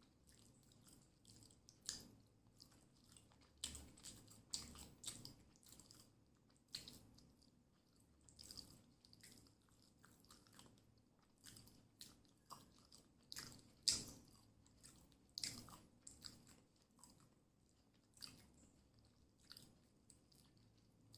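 Faint, close-miked chewing and biting of a fish-and-rice meal: irregular wet crackles and small crunches, with one louder crunch a little past the middle.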